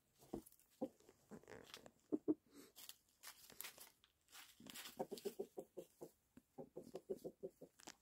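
Chickens clucking softly, in two quick runs of short notes in the second half.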